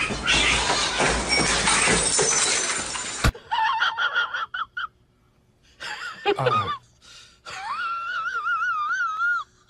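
A long clattering crash as a cat tumbles off a cluttered desk and knocks things over, cut off sharply about three seconds in. Then several high, wavering cries follow, one of them sliding steeply down in pitch.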